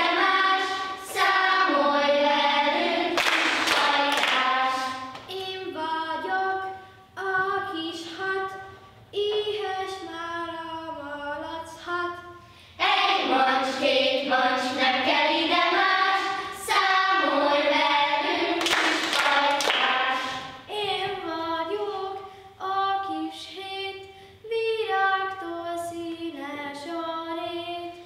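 Group of children singing a Hungarian counting song in unison, with louder and quieter passages alternating.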